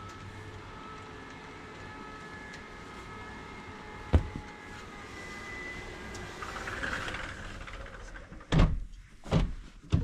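A sliding glass balcony door and its curtain being handled as the door is shut: a single sharp thump about four seconds in, then a few heavy knocks and fabric rustling near the end.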